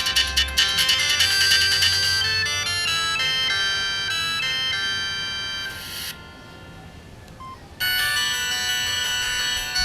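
Samsung SGH-T509 mobile phone playing polyphonic ringtones, one after another. The first melody ends about six seconds in. After a short pause a different ringtone starts near the end.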